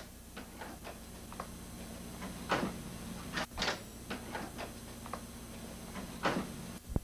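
Handling noises of a long-handled shovel being grabbed and lifted: irregular light clicks and knocks, a few short scraping swishes, and a low thump near the end, over a faint steady hum.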